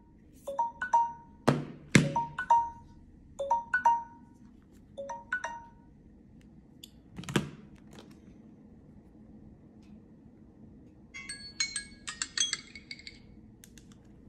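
Smartphone alarm tone: a short chime of a few notes repeating about every second and a half, stopping about five seconds in, with knocks from the phones being handled. About eleven seconds in, a second phone plays a brief, higher bell-like alarm tone.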